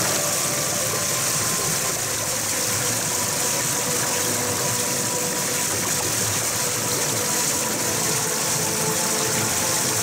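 Small stream waterfall: water pouring through a narrow gap between boulders and splashing into a rocky pool, a steady rushing splash.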